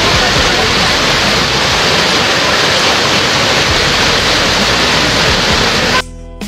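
Heavy rain and floodwater rushing across a street: a loud, steady hiss of water. About six seconds in it cuts off abruptly into a short electronic buzz.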